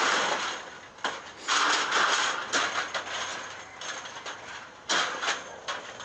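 Steel decks and ramps of a car-hauler trailer clattering and scraping in rough bursts as a pickup truck is driven forward along the upper deck. The loudest bursts come right at the start, about two seconds in, and again around five seconds in.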